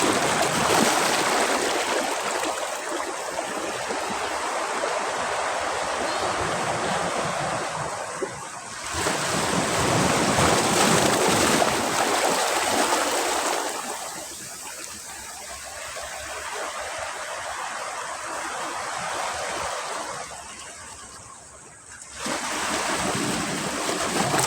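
Sea waves breaking on a beach, the surf coming in surges: one at the start, another about nine seconds in, and a sudden third near the end, with a quieter wash between them.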